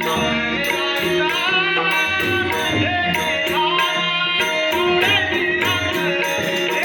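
Marathi devotional bhajan music: a melody with gliding pitch over tabla and pakhawaj drumming, with a regular beat of sharp, high clinking strokes.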